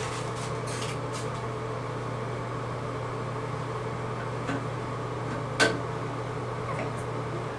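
Steady low hum of a bathroom exhaust fan, with a faint knock about four and a half seconds in and a sharp click about a second later.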